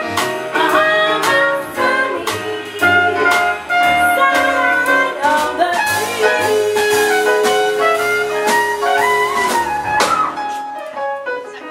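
Live jazz band of trumpet, piano, upright bass and drums playing a swing tune, with a long held melody note about halfway through.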